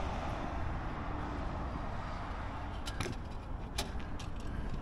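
6x6 military wrecker's engine idling, a steady low rumble, with a few light clicks about three to four seconds in.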